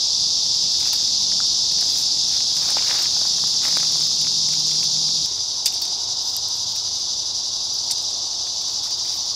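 Insects buzzing in a steady, unbroken high-pitched drone, with a few faint clicks and rustles of branches.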